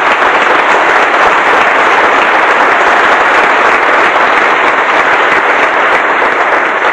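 Audience applauding, a dense, steady clapping that holds at an even level for several seconds.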